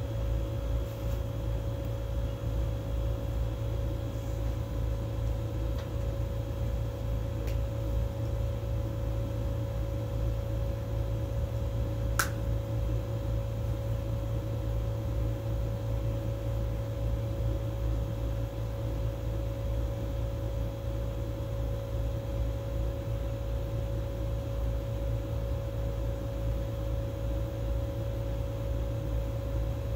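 Steady machine hum in a small room, unchanging throughout, with a single sharp click about twelve seconds in.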